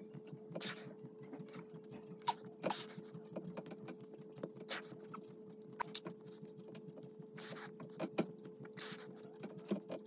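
Faint breathing and body movement of a man doing push-ups, short noisy breaths about every two seconds with small clicks between, over a steady hum.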